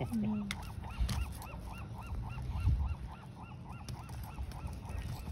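Rapid run of short honking calls, about four or five a second, over wind rumbling on the microphone.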